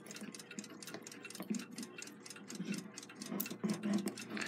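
A mechanical clock ticking steadily, several quiet ticks a second.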